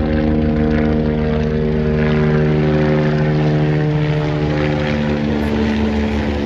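Helicopter flying overhead, its rotor and engine giving a loud, steady drone with a regular low beating.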